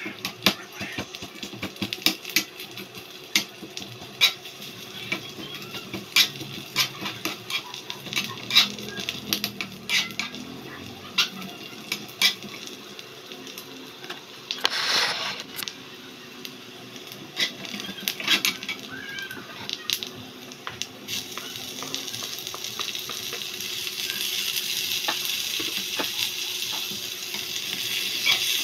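A small metal spatula clicking and scraping against a miniature aluminium wok as onions fry in it. There is a brief hiss about halfway through, and from about two-thirds of the way in a steady sizzle of frying grows louder.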